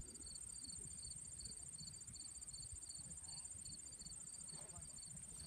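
Insects trilling in dry grass: a steady high pulsing trill with a lower chirp repeating a few times a second, over a faint low rumble.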